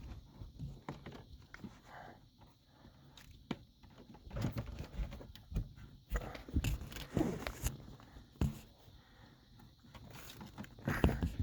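Hand work on a hood latch cable and its rubber boot: irregular clicks, scrapes and rustling, busiest in the middle and again near the end.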